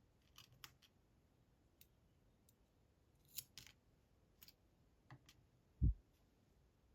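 Scattered small sharp clicks and light taps of tiny lock parts and tools being handled while a Bramah-style pump lock is taken apart, with one dull low thump about six seconds in.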